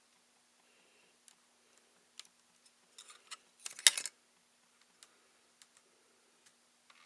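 Scattered light clicks, with a quick flurry of louder clicks and rattles about four seconds in, from hands working on a ThinkPad T61 laptop. A faint steady hum lies underneath.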